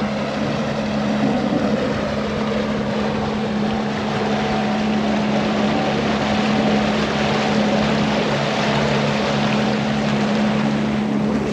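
Suzuki outboard motor running steadily at speed as the boat travels, with a constant rush of wind and water over the engine drone.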